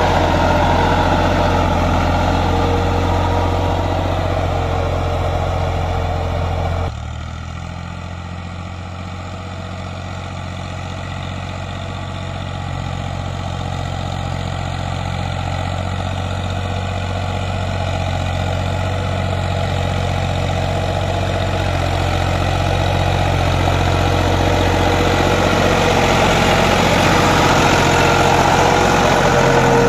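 Fiat 480 tractor's three-cylinder diesel engine running steadily while it works a blade through soil. The sound drops suddenly about seven seconds in, then grows gradually louder as the tractor draws nearer.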